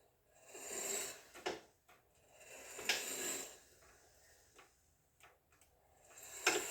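Permobil F5 Corpus VS power wheelchair drive motors whirring in three short surges, each with a sharp click or clunk near its peak. The owner is unsure whether these motor noises are normal.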